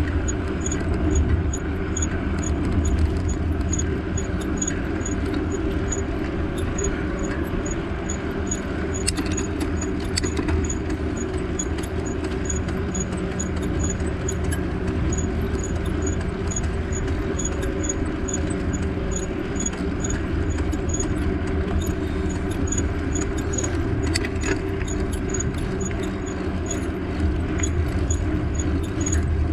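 Steady ride noise from a moving bike: low wind and road rumble, with a faint light tick repeating about twice a second and a few brief clicks.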